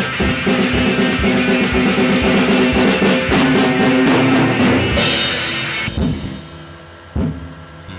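Backing beat of a rap song with drum kit, no vocals. About five seconds in it ends on a crash that rings away, the music dies down, and a sharp hit comes near the end.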